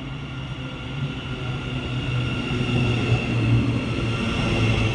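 Thameslink Class 700 electric train pulling into the platform: a low hum under a steady high-pitched motor whine, growing steadily louder as the train draws alongside.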